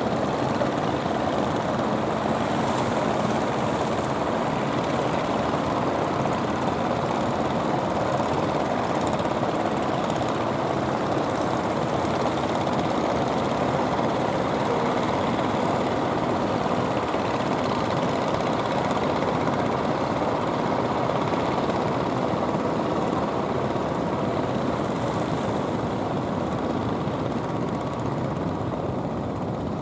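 Engines of several outrigger fishing boats running together in a continuous, steady drone, easing slightly near the end.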